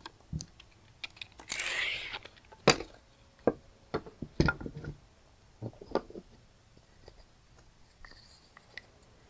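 Scattered light clicks and knocks of the wooden parts of a Langstroth hive frame being handled and fitted together on a cloth-covered table, with a brief rustling scrape about a second and a half in.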